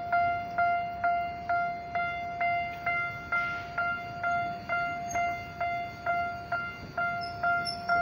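Japanese level-crossing warning bell ringing while a train crosses. It is a single bell-like tone repeated at an even pace of about two strikes a second, each strike sharp and quickly fading.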